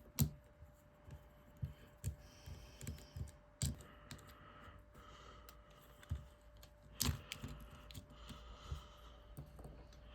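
Faint, irregular clicks and taps of a small Phillips screwdriver and metal parts on an iPhone 3GS's frame as tiny screws are taken out.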